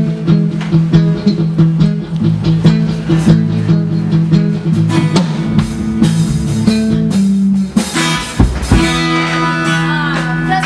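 Amplified acoustic guitar played over a sound-check PA: a repeated picked pattern of notes, a brief break with a low thump about eight seconds in, then a held chord ringing on.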